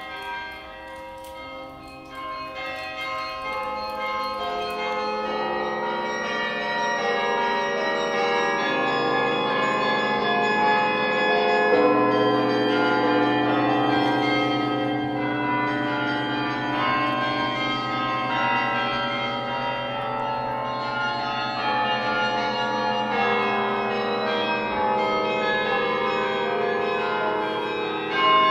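Background music of slow, sustained layered chords, growing louder over the first few seconds and then holding steady.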